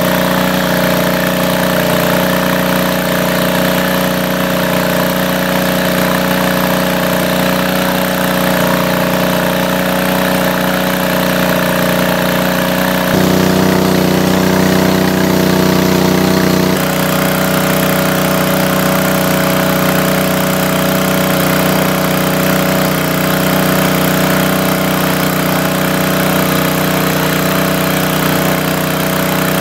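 Small engine-driven water pump running steadily, draining the water. For a few seconds in the middle, the hum shifts to a slightly different, louder pitch.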